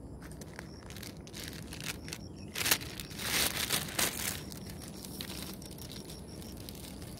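Plastic sheeting crinkling and rustling as it is handled and wrapped. There is a sharp crackle about two and a half seconds in, then a longer spell of crinkling for about a second.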